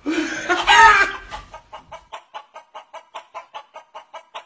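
Chicken sound: a loud pitched call that bends up and down for the first second and a half, then a quick run of short clucks, about five a second.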